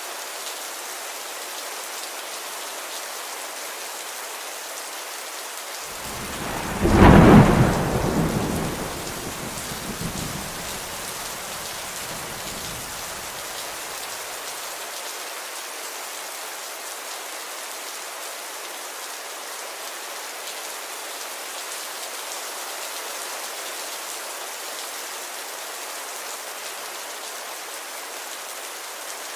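Steady rain with a clap of thunder about six seconds in that rumbles away over several seconds.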